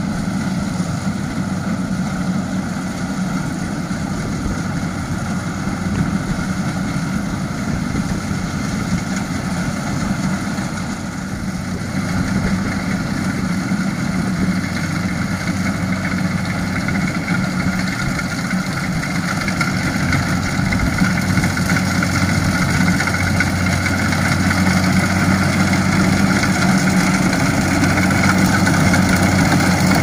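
Kubota DC-70 rice combine harvester's diesel engine running steadily while it cuts rice, a continuous drone that grows louder over the second half.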